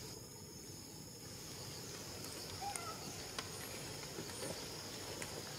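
Outdoor ambience of insects droning steadily at a high pitch over a low even hiss, with a few faint ticks and one short faint call about two and a half seconds in.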